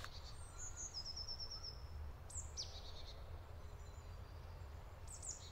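Faint forest ambience: small songbirds calling, with a short trill of quick repeated notes about a second in and brief falling chirps about two and a half seconds in and again near the end, over a low steady rumble.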